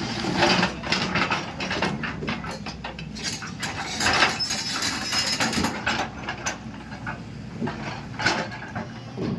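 JCB 220LX excavator at work: irregular metallic clanks, knocks and rattles over a steady low engine hum.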